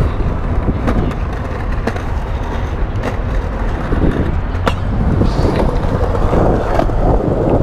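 Skateboard wheels rolling on concrete, a loud steady rumble, with a few sharp clacks of the board.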